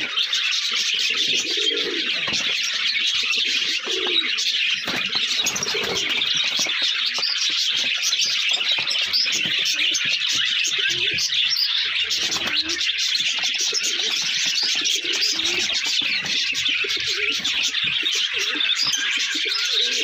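Domestic pigeons cooing again and again, over a constant high chirping of many birds.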